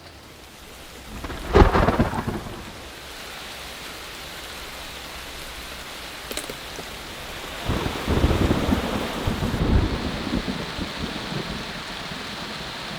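Steady rain with thunder: a short, loud clap of thunder about a second and a half in, and a longer rolling rumble from about eight to ten seconds.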